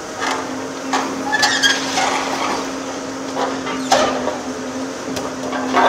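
Hydraulic demolition shear on a Volvo EC750E HR excavator crunching through steel beams and brickwork: a string of sharp cracks and short metallic squeals over the steady hum of the excavator.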